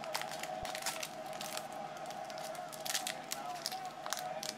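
Foil wrapper of a 2018 Topps Tier One baseball card pack crinkling and tearing as fingers peel it open, in irregular small crackles, over a faint steady hum.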